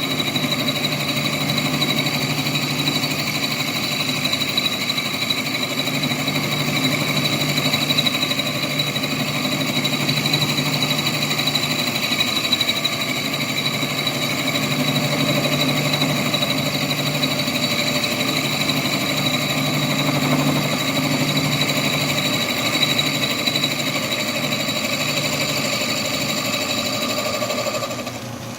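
Atlas metal lathe running, its spindle driving an end mill through a milling pass on a workpiece in a milling attachment: a steady machine whine with the noise of the cut. It quietens a little before the end as the cut finishes.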